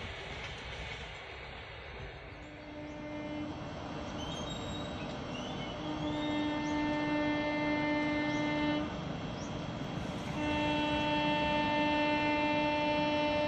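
WAP-4 electric locomotive's horn sounding three times: a short blast about two seconds in, then two long blasts of about three seconds each, the last still sounding at the end, over the steady running noise of the train.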